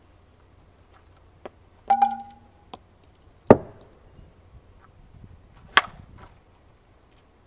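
A Worth Resmondo 454 Legit composite slowpitch softball bat cracks against a pitched softball, a sharp hit about six seconds in. Before it there is a short metallic clink with a brief ringing tone about two seconds in, and a louder sharp thump about a second and a half later.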